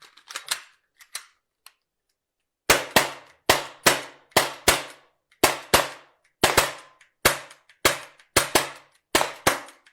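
Glock 17 pellet air pistols firing a rapid string of sharp shots, often two close together, about two or three a second, as two shooters race each other. A few light clicks come first, and the shooting starts a little under three seconds in.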